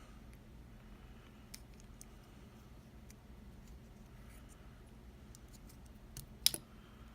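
Small, faint clicks and scrapes from a lock and its tools being handled while the lock is taken apart, with one sharp click near the end.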